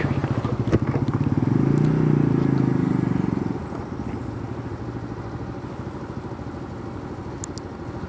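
Motorcycle engine running as the bike moves off at low speed: a fast, even engine pulse, louder for the first three seconds or so, then settling to a quieter steady run as the throttle eases.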